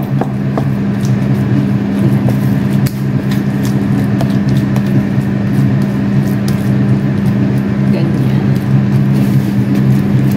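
A steady low machine hum, with light scattered taps and scrapes of a wooden spatula pressing sticky rice into a metal baking pan.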